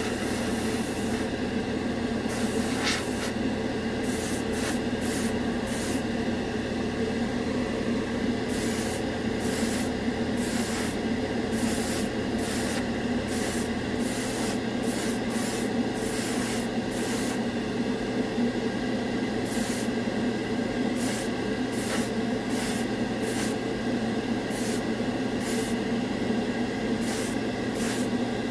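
Airbrush blowing dry air over freshly sprayed copper lacquer to dry it, in short hissing bursts about once a second, over the steady whir of a spray booth fan.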